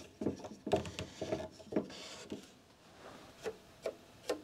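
Bookbinding sewing frame being adjusted: a series of short, irregular wooden knocks with rubbing between them as the knobs on its posts are turned to raise the crossbar and tension the sewing tapes.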